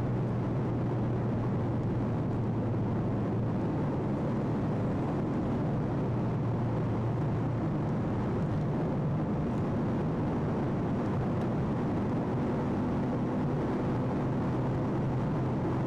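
Steady engine and tyre noise heard from inside a vehicle cruising on a motorway: a constant low drone that does not change.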